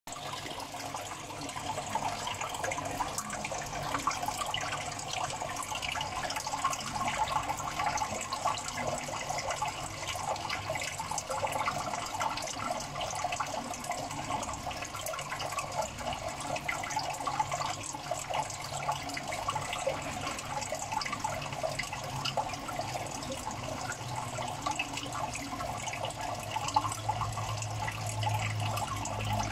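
Water trickling and splashing steadily into a tank, full of small crackling drips, with a low hum coming up near the end.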